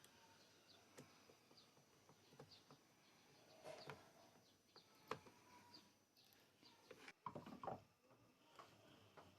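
Near silence, with faint short high chirps every second or so and a few light clicks, the loudest about five seconds in and again near the end.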